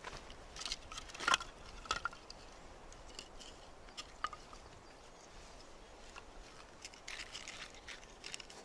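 Split firewood sticks knocking and clacking together as they are stacked by hand for a fire: a few sharp knocks about a second and two seconds in, and a run of lighter ones near the end.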